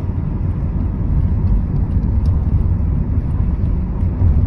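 Steady low rumble of road and engine noise heard from inside a car's cabin while it drives along a city street.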